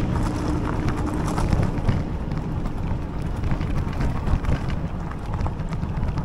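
Fat-tyre e-bike rolling over a gravel track, with many small crunches and clicks from the stones under the tyres and wind buffeting the microphone. A low hum fades away in the first second.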